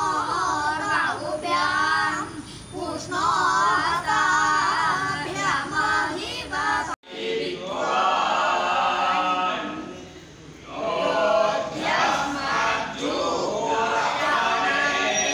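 A group of boys singing together in unison. The singing breaks off abruptly about seven seconds in, then group singing carries on.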